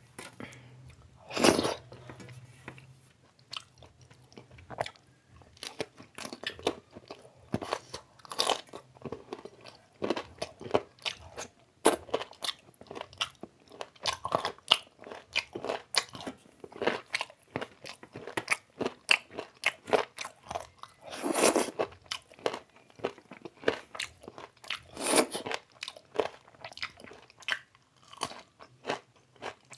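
A person chewing and biting on chicken biryani and chicken curry, with a run of small crunches and wet clicks and a few louder bites scattered through.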